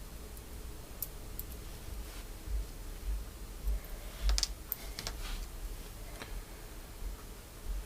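Small plastic clicks and taps of keyboard stabilizer parts being handled and pushed into their clips on a circuit board: a few scattered clicks, with a cluster about four to five seconds in.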